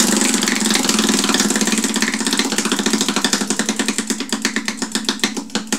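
Prize wheel spinning, its flapper clicking rapidly against the pegs on the rim; the clicks spread further and further apart as the wheel slows to a stop near the end.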